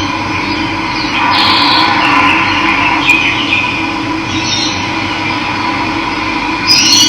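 Steady rush of running water, with birds calling over it a few times; the last call, near the end, is the loudest and rises in pitch.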